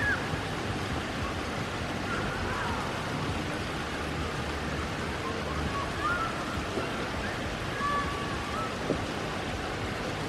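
Steady rain falling on wet pavement, puddles and grass: an even, unbroken hiss.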